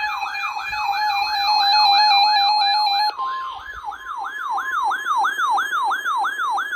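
Electronic emergency alert alarm tone opening a tornado watch: a fast falling siren-like sweep repeating about three times a second over steady tones. About three seconds in, the steady tones give way to a single higher tone.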